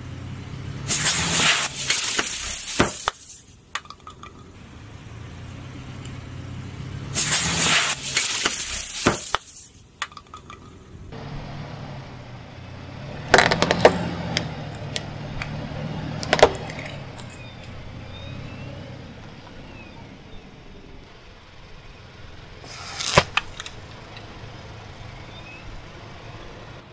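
A car tyre rolling over and crushing small objects one after another, over the low sound of the car's engine. Two long hissing sprays burst out about a second in and again about seven seconds in, as containers burst under the tyre. Sharp cracks and snaps follow in the middle and once more near the end as plastic gives way.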